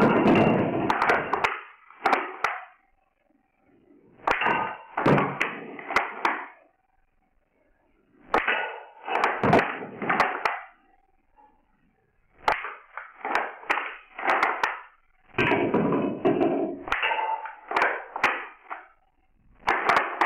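A wooden bolt-action rubber band gun is worked and fired with standard size 16 rubber bands. Sharp clicks of the action are each followed by a short clatter of small cups being knocked off a stacked pyramid onto a wooden board. This happens in several bursts a few seconds apart, with quiet gaps between.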